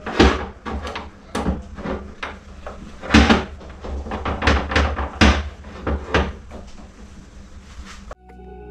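Sharp metal clicks and knocks, a dozen or so at an uneven pace, as steel pull pins are worked out of a hot metal lead-sinker mold and the mold is opened. About eight seconds in they stop abruptly and background music starts.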